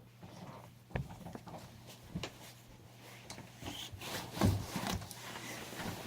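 A few light knocks, the loudest about four and a half seconds in, with some rubbing and rustling in between: small objects and containers being handled.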